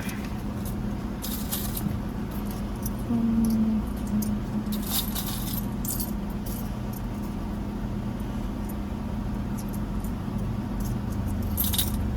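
Loose coins clinking and jingling in a few short bursts as change is gathered up, over the steady hum of a car engine idling.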